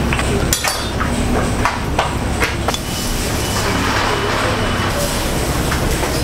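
Rice paddle and small square rice mold knocking and scraping as seasoned rice is scooped from a steel pot, packed and pressed out onto the omelets: a few sharp clicks in the first few seconds. Under them runs a steady low stall hum with background voices.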